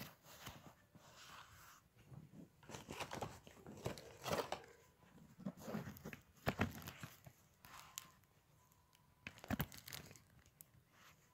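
Irregular scraping, crinkling and sharp clicks of hands pulling apart parts of a hybrid car battery pack.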